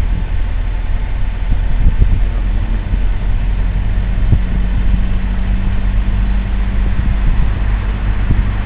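Car engine running at a steady speed, with an even hum and no change in revs.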